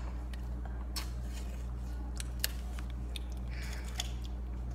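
Scattered light clicks and taps of plastic cups and a squeeze bottle being handled as yogurt and chocolate syrup go into blender cups, with a short soft squelch about three and a half seconds in. A steady low hum runs underneath.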